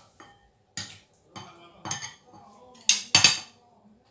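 Metal serving spoon clinking and scraping against ceramic bowls while food is dished out, a few separate knocks with the loudest pair of clatters near the end.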